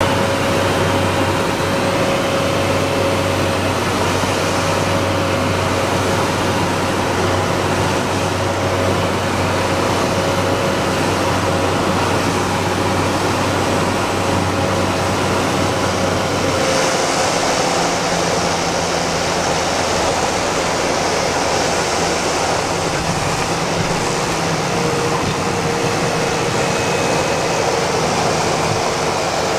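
Cessna 208 Caravan's PT6A turboprop engine and propeller running steadily, heard inside the cockpit on final approach and landing. About 17 seconds in, the deep drone drops away and a higher hiss takes over as the aircraft settles onto the runway and rolls out.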